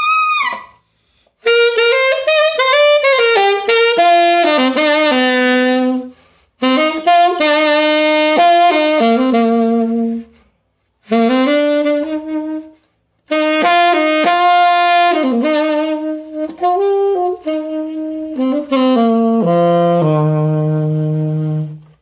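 Solo alto saxophone fitted with a Free'Sound ligature, played as a tone demonstration. It plays several flowing melodic phrases with short breaks for breath between them, and ends on a long, low held note near the end.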